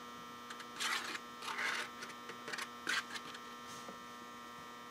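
Steady electrical mains hum, with three or four brief rustles about one, one and a half and three seconds in, as a hand-held sheet of paper is moved.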